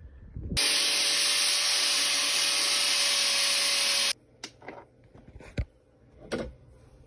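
A power tool runs steadily with an even, high hiss for about three and a half seconds, cutting in and out abruptly, as it sharpens the machete blade. A few light clicks and knocks follow.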